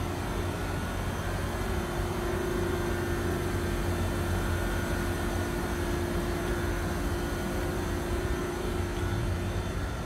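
Mitsubishi Heavy Industries commercial air conditioner outdoor units running: a steady low hum of compressor and condenser fans with a constant tone held over it.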